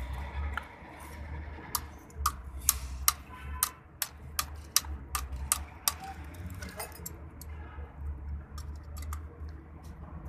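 Piston rings clicking as fingers turn and seat them in the grooves of an aluminium piston: a run of small, sharp metallic clicks at an irregular pace, starting about two seconds in and thinning out after about seven seconds.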